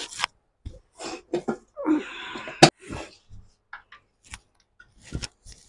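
A metal spoon stirring thin flour batter in a bowl: scattered small clicks and scrapes, and one sharp tap of the spoon about two and a half seconds in.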